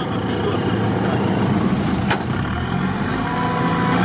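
Off-road 4x4 engine running steadily under load in the mud. There is a sharp click about two seconds in, and a high whine rises in pitch near the end.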